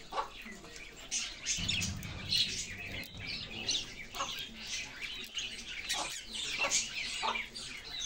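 Several budgerigars chattering and warbling together, a continuous high stream of short chirps and squeaks.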